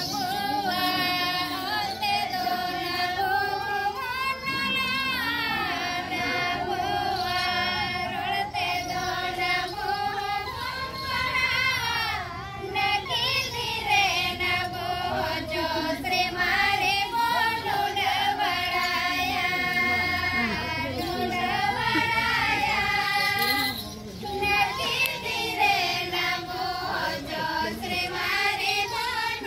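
Women's voices singing a Santali dance song together in unison, in a high register, with the melody rising and falling in long repeated phrases and a short pause near the end.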